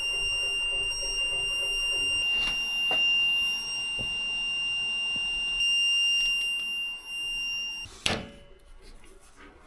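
A continuous high-pitched electronic alarm tone, like a piezo buzzer or smoke alarm, holding one steady pitch for about eight seconds. It stops with a sharp knock, and a few faint ticks and clicks follow.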